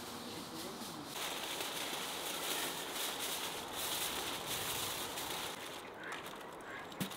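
Aluminium foil being crumpled and scrunched by hand, a dense crackling rustle that starts about a second in and stops shortly before the end. It is followed by a single sharp click.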